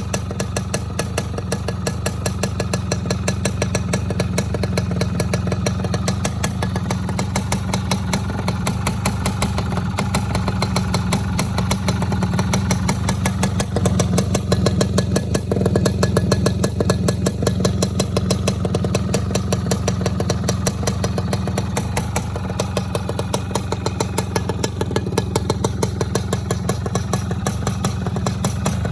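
Race-modified Yamaha F1ZR's 110cc single-cylinder two-stroke engine running steadily near idle, with a rough, raspy 'ngorok' (snoring) exhaust note and small swells in revs.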